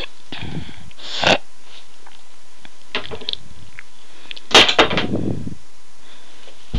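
A few short breathy huffs and scuffling knocks from a boy thrashing about with boxing gloves and a snooker cue. One sharp burst comes about a second in, and a louder cluster comes about halfway through.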